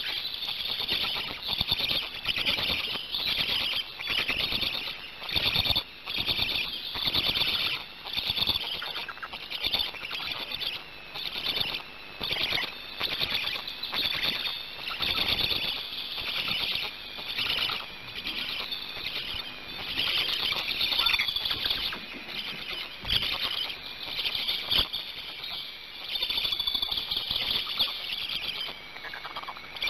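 Black stork chicks begging at the nest: a continuous rapid chatter of high, squeaky calls that swells and fades every second or two as the adult feeds them.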